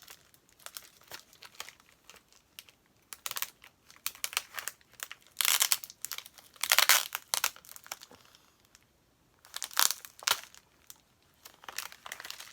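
A taped mail package being torn open by hand: irregular crinkling and tearing of tape and packaging, in short bursts with the loudest about halfway through and again a little before the end.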